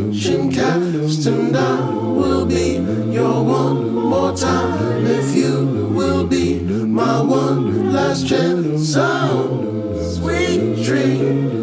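A cappella song: several layered voices singing over a low sung bass line held in notes of about a second each, with no instruments.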